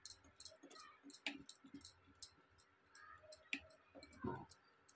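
Faint, irregular clicking and scraping of a whisk beating thick cake batter against the sides of a steel bowl, several small ticks a second with a few louder knocks.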